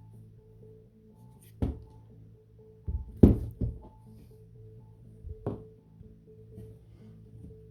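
Background music with steady held notes, over which a handful of sharp knocks sound as airsoft parts are handled and fitted, the loudest a little past three seconds in.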